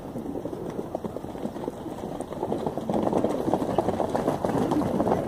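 A herd of horses and ponies galloping over sandy ground: many hoofbeats thudding together, growing louder about halfway through as the herd passes close.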